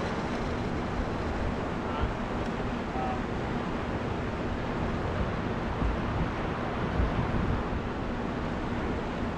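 Wind buffeting the camera microphone, a steady rushing noise heaviest in the low end with irregular low thumps, over water sounds and a faint steady hum.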